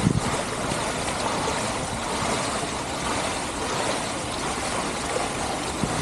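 Fountain water splashing steadily: many jets falling back into the pool and water spilling over a granite rim into the basin below.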